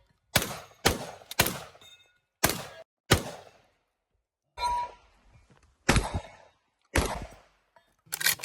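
A competition shotgun fired in quick succession during an IPSC shotgun stage: three shots about half a second apart, then two more, a duller clank with a brief ring near the middle, then three further shots about a second apart, each with an echoing tail.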